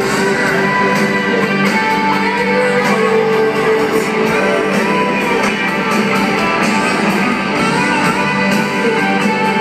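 A live country band playing amplified music, with guitar strumming prominent over a steady beat.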